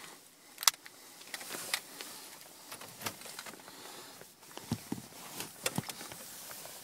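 Rustling and scattered sharp clicks of a gloved hand working at the steering column as the ignition is switched on, with the engine not yet running. The loudest click comes under a second in, and a cluster of clicks follows about five and a half seconds in.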